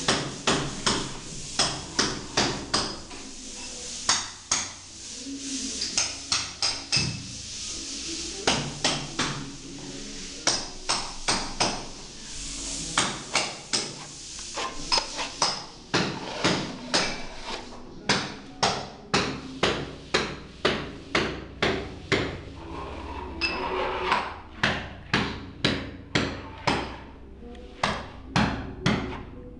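Steel spatula spreading acrylic putty over a tiled wall, clacking against the surface with each stroke: a run of sharp clicks about two a second.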